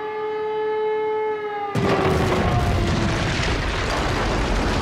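A warning siren holds a steady tone, then just under two seconds in a sudden loud blast goes off as the demolition charges at the base of a cooling tower fire. A rumble with crackling follows while the siren fades away beneath it.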